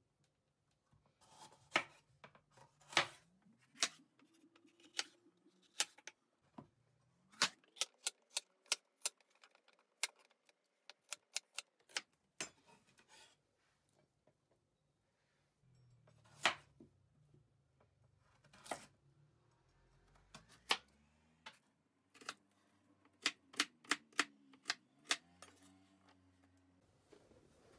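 Chef's knife chopping a bell pepper into cubes on a wooden chopping board: sharp, irregular knocks of the blade striking the board, some in quick runs of several strikes.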